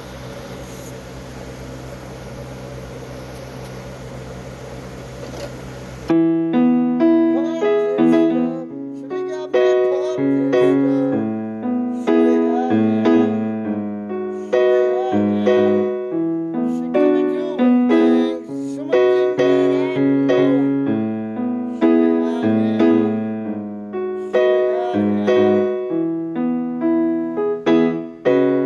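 Steady hiss and low hum for about six seconds. Then an electronic keyboard starts abruptly, playing in a piano voice: a repeating pattern of chords over low bass notes, each note dying away.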